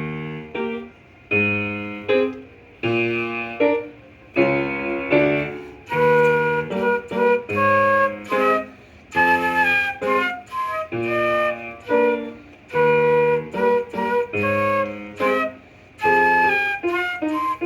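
Music: a woodwind melody, flute-like, played in short phrases of quick separate notes over lower accompanying notes that sound like piano.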